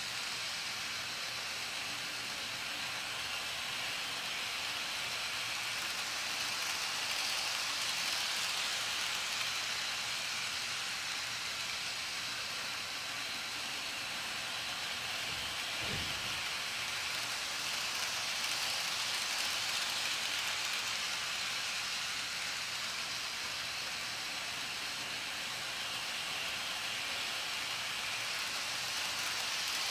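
Electric toy train running around its oval track: a steady whirring, hissing rattle of motor and wheels that swells and fades about every ten seconds as it laps.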